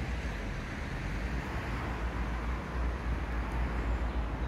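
Steady outdoor background noise with a strong low rumble and no distinct events.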